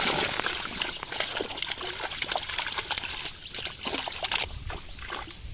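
Water splashing and trickling as a net packed with small live fish is lifted and worked in shallow water, the fish thrashing in the mesh. A dense patter of small splashes that thins out near the end.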